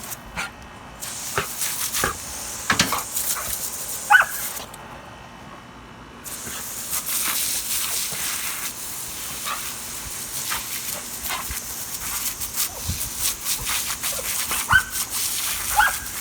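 Garden hose spray hissing steadily, cutting out for a moment about five seconds in, with splashing and a dog giving a few short barks, once about four seconds in and twice near the end.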